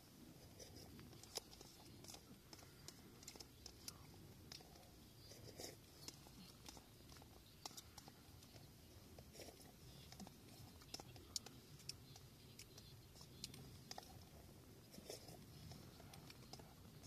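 Near silence, with faint, irregular small clicks and quiet handling and mouth noises as a paper cup is drunk from.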